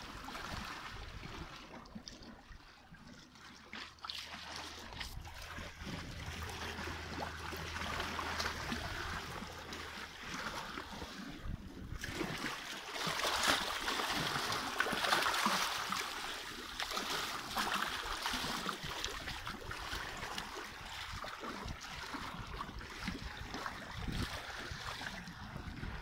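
Water washing and trickling among rocks and pebbles on a stony shore: a steady wash that grows louder for a few seconds in the middle.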